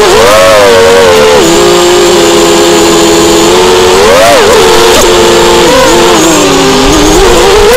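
Small drone's electric motors and propellers whining close to the microphone, several tones together rising and falling in pitch as the throttle changes, with a sharp rise about four seconds in and a dip near the end.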